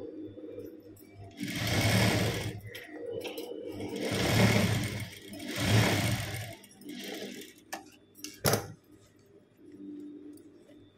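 Sewing machine stitching a handbag seam in three short runs, stopping and starting, with a shorter run after. A single sharp knock about eight and a half seconds in.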